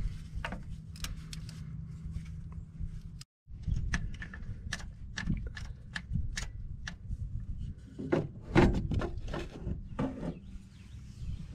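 3/8-inch ratchet on a long extension being worked on a starter mounting bolt: irregular ratchet clicks and metal tool clinks over a low rumble of handling noise.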